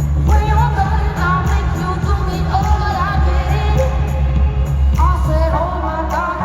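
Live pop music: a woman singing over a band, with a heavy, steady bass.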